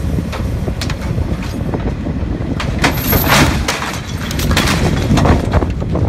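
Strong wind rumbling on the microphone, with a run of metallic clanks and scrapes from about halfway through as wreckers haul an overturned semi-truck back onto its wheels.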